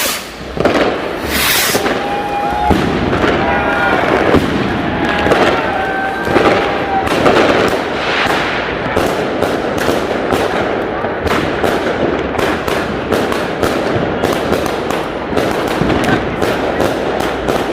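Fireworks going off in quick succession, a steady run of bangs and crackles that grows denser in the second half, with people's voices in the crowd.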